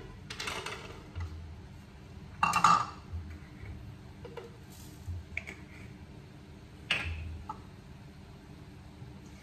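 Scattered clinks and knocks of kitchenware as spice ingredients are tipped from a bowl into a blender jar. The loudest, a ringing knock, comes about two and a half seconds in, and a sharper one about seven seconds in.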